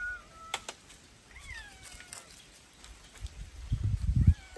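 Domestic cat meowing, a few falling calls, the clearest about a second and a half in. Near the end, a low thudding rumble that is louder than the meows.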